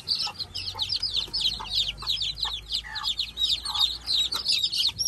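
Many young chicks peeping nonstop, a rapid overlapping stream of short, high, falling peeps, with a mother hen clucking a few times underneath.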